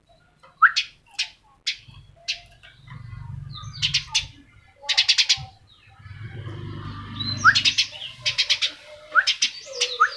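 A bird calling in quick harsh trains of about five rapid notes, several times, with short upward-sweeping chirps between them.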